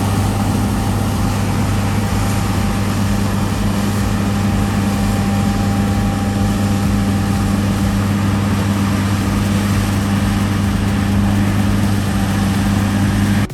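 Large diesel engine of harvest machinery running steadily, a constant low hum.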